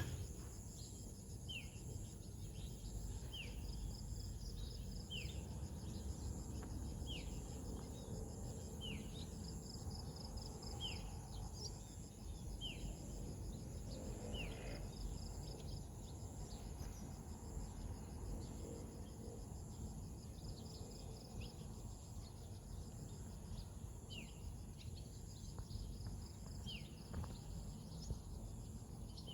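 Outdoor nature ambience: insects trill steadily in several high-pitched tones while a bird repeats a short falling call about every two seconds, pausing for a while midway. A low rumble sits underneath.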